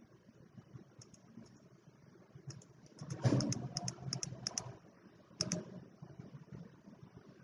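Clicking at a computer keyboard and mouse: a few light clicks, then a quick run of clicks and key taps, then a couple more.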